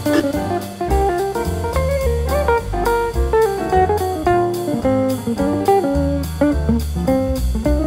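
Background music: a guitar-led instrumental with a bass line underneath.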